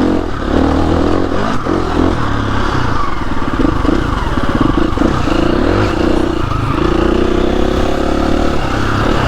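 KTM 350 EXC-F single-cylinder four-stroke enduro engine running under load on a dirt trail, its revs rising and falling as the throttle is worked.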